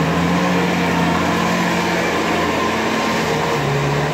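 Bobcat compact track loader's diesel engine running steadily as the machine drives across the dug-out yard on its rubber tracks. The engine note dips slightly and picks up again near the end.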